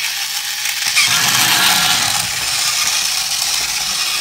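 Battery-powered motors and plastic gears of Tomy toy vehicles (Thomas and Bulgy the bus) whirring steadily; about a second in, the sound gets louder and deeper as the second toy joins in.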